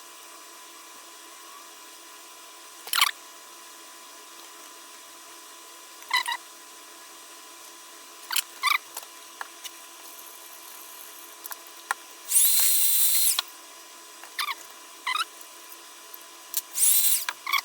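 Soldering iron reflowing the pins of a PAL chip coated in liquid rosin flux: short sizzling hisses each time the hot tip touches a pin, about a dozen of them, one lasting about a second, over a steady low hum.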